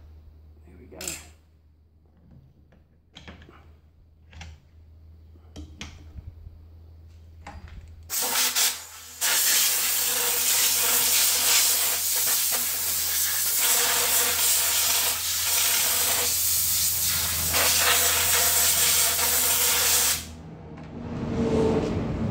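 Compressed-air blow gun hissing loudly for about twelve seconds, with a short break just after it starts, blowing swarf and cutting oil off a slotted steel part on the lathe. Before it, a few light clicks and knocks of metal parts being handled.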